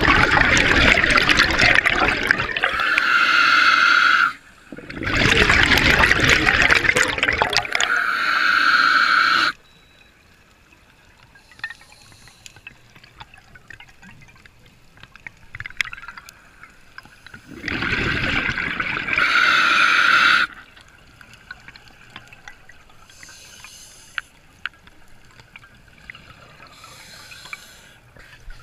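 Scuba diver's exhaled bubbles gurgling out of the regulator underwater in three long bursts, each several seconds long. Between them are much quieter stretches with faint ticks and hisses.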